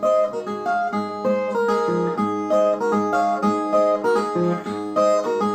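Brazilian viola, a ten-string folk guitar, played solo: a melody picked note by note. It is the instrumental lead-in to a sung repente verse.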